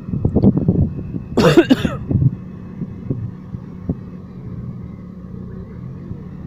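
A small sports car's engine idling steadily, with short bursts of people's voices and one brief loud vocal outburst about a second and a half in.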